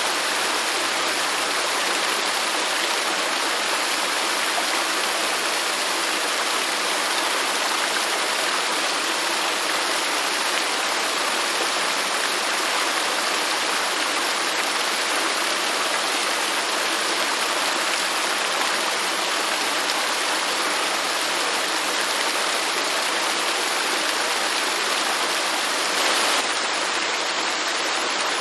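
Garden fountain water falling and splashing steadily, a continuous even rush of running water, briefly a little louder once near the end.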